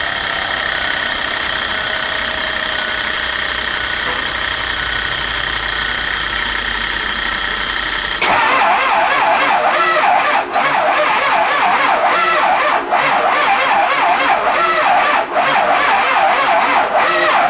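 Starter cranking the 6.0 Powerstroke V8 diesel slowly without it starting. The sound changes abruptly and grows louder and rougher about eight seconds in, with an uneven pulse that the mechanic takes for a blown head gasket.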